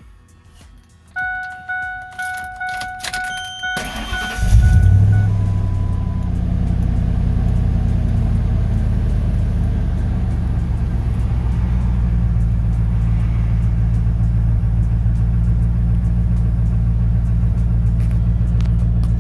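A 1997 Ford F-150 starting: a rapid series of electronic warning beeps from about a second in, then the starter cranks briefly and the engine catches about four and a half seconds in, settling into a steady idle.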